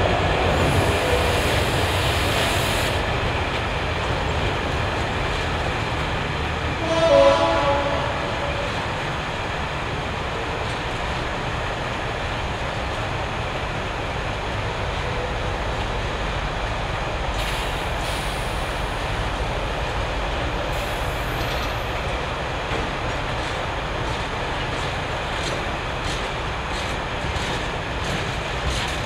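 Bogie ballast wagons of an engineering train rolling past with a steady rumble. A short horn blast sounds about seven seconds in, and wheel clicks over rail joints come through near the end.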